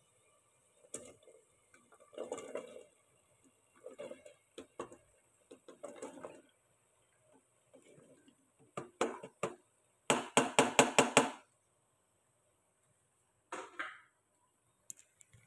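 Metal pot and utensil clatter as cauliflower florets and potato pieces are tipped into the pot and handled. Scattered knocks run throughout, and about ten seconds in a quick run of sharp metal knocks is the loudest part.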